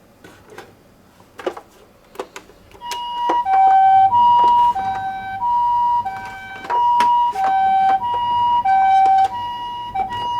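Toy ambulance minicar's electronic siren sounding the two-tone hi-lo ambulance call, a higher and a lower tone alternating about every half second. It starts about three seconds in, after a few sharp clicks, and clicks go on over it.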